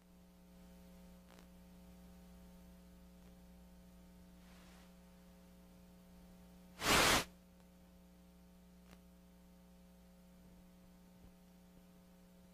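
Dead broadcast feed after the earthquake knocked out the game telecast: a steady electrical hum, with a short loud burst of static about seven seconds in.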